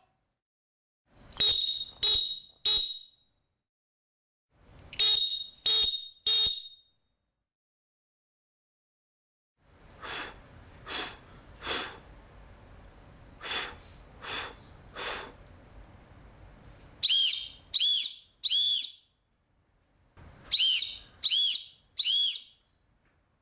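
Referee whistle blown in sets of three short, sharp blasts, six sets in all. The two middle sets are quieter, with a breathy hiss between blasts. The last two sets waver in pitch like a trill.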